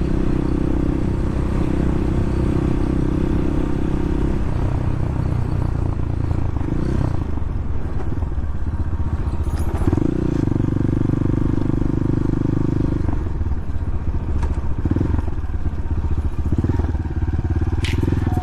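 Bashan 250 dirt bike engine running under way, holding a steady pitch, easing off about four seconds in, then pulling steadily again from about ten seconds in before easing off once more a few seconds later.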